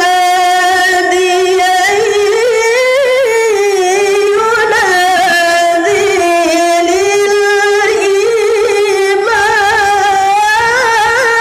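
A woman reciting the Qur'an in the melodic mujawwad style into a microphone: one unbroken, high melismatic line of long held notes with rapid wavering ornaments, climbing in the first few seconds and settling back lower before rising again near the end.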